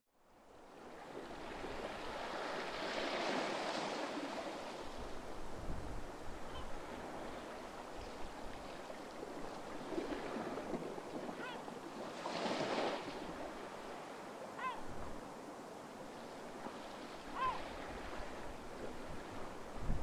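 Small waves breaking and washing up a sandy beach, swelling and easing every few seconds after fading in at the start. A few short bird calls sound faintly over the surf.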